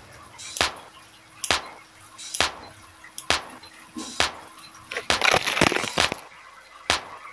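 Fingernail clippers snipping, one sharp click about every second, then a phone clattering as it is knocked over and falls, about five seconds in.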